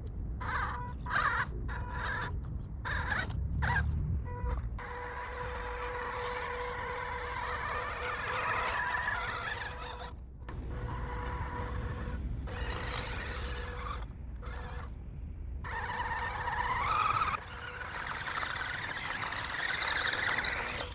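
Electric motor and gear drive of an RC scale crawler whining under throttle. It cuts in and out many times in short spurts, and rises in pitch once as it speeds up, about two thirds of the way through.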